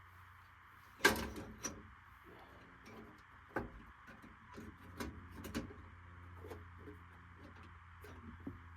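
Knocks and clicks of hands and tools working on a gas furnace, the loudest about a second in and several lighter ones after, over a steady low hum.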